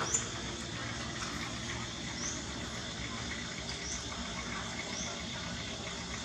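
Steady outdoor insect drone, with a short rising chirp repeated about once a second and one brief knock near the start.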